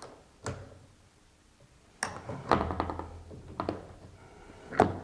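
A wrench clicking and knocking on the nut of a slide-out cable adjustment bracket as the cable is adjusted: one sharp click about half a second in, then a cluster of clicks and knocks in the second half and more sharp clicks near the end.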